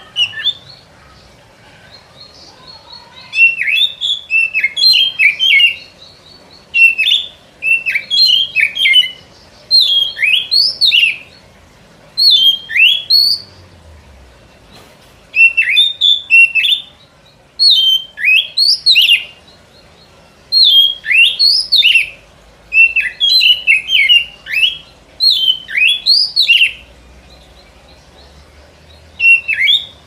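Oriental magpie-robin (kacer) song, a recording used as a lure call. It comes in loud phrases of quick whistled notes that sweep up and down, each phrase a second or two long, repeated after short pauses.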